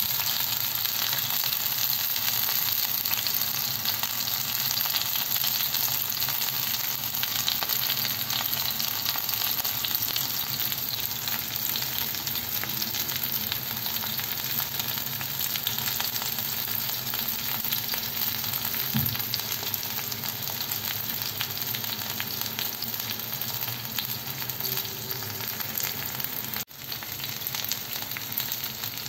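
Marinated chicken skewers frying in hot oil on a ridged grill pan: a steady, dense sizzle and crackle, with a brief break near the end.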